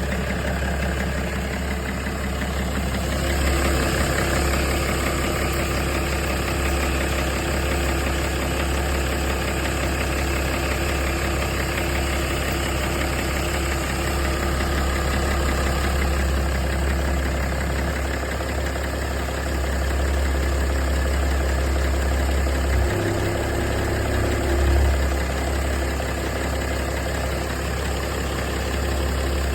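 BMW M57 inline-six diesel engine idling steadily, with a knock coming from the front of the engine.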